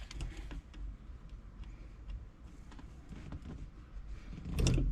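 Faint scattered clicks and small knocks of hands and tools working at a VW Beetle's shift rod coupler inside the floor tunnel, with a louder handling noise near the end.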